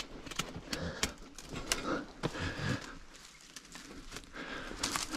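Dry brush, vines and twigs crackling, scraping and snapping as someone shoves through a thicket on foot, with irregular snaps and steps throughout.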